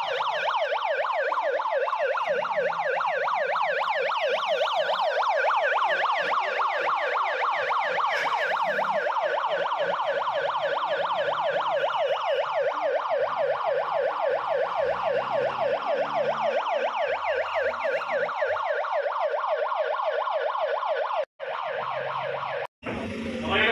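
Siren sounding the earthquake-drill alarm: a steady, rapid up-and-down yelp that repeats several times a second, with two short breaks near the end.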